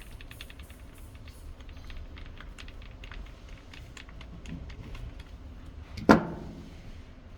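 A screwdriver driving small screws back into a digital door lock's handle housing: a run of light, irregular clicks and ticks, with one louder knock about six seconds in.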